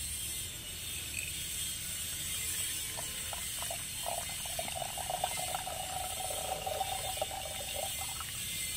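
Liquid poured in a thin stream from a small glass beaker into a larger glass beaker, trickling from about three seconds in until near the end. A steady high buzz runs underneath.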